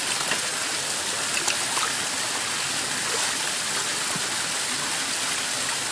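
Small rocky mountain brook running over stones and down a little plunge pool cascade: a steady rush of water, with two faint ticks in the first couple of seconds.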